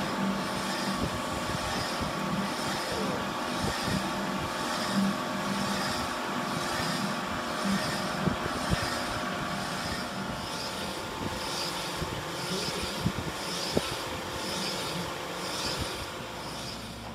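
Boring machine running, its boring bar turning inside a connecting rod's big-end bore and cutting the stainless steel metal spray to size. It makes a steady machine hum with a pulse about every three-quarters of a second and a few sharp ticks.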